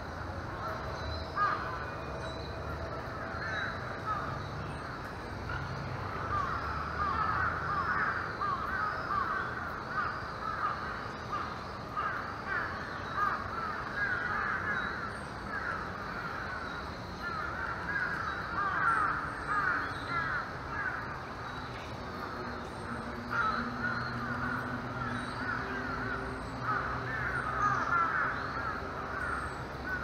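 Many wild birds calling at once: a dense, continuous chatter of short overlapping calls, with a few faint high chirps above it.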